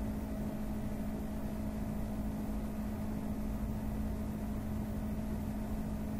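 Steady background hum in a small room, with a constant low tone over a faint hiss and rumble.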